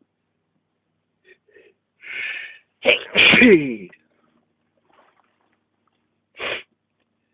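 A person sneezing after sniffing tobacco snuff: a gasping intake, then a loud sharp "achoo" about three seconds in, its voiced tail falling in pitch. A short burst of breath comes near the end.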